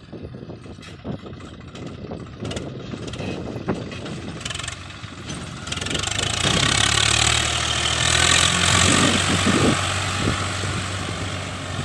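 Swaraj 744 FE tractor's diesel engine running as it pulls a trailer across soft field ground, growing louder as it comes close past about six seconds in, then easing slightly.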